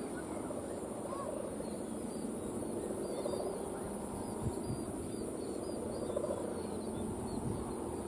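Outdoor ambience: a steady low rumble of wind and distant voices, a constant high hiss, and many faint short high chirps.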